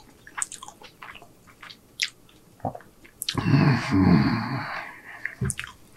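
Close-miked chewing of hamburger steak, with a stream of small wet mouth clicks. About three seconds in comes a louder breathy sound with a low hum, lasting about a second and a half.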